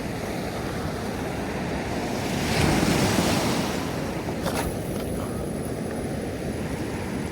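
Ocean waves washing onto a rocky beach, one surge swelling up about two and a half seconds in and easing off again, with wind on the microphone. A single sharp click about four and a half seconds in.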